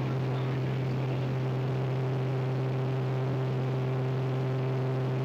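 Steady, unchanging low drone of an aircraft engine, with fainter steady overtones over a hiss.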